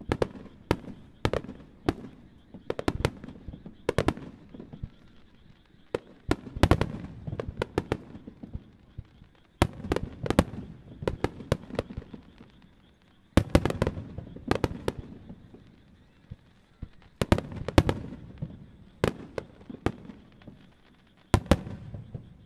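Star mine fireworks: aerial shells fired and bursting in rapid volleys. Sharp bangs come several at a time every couple of seconds, each cluster trailing a low rumbling echo.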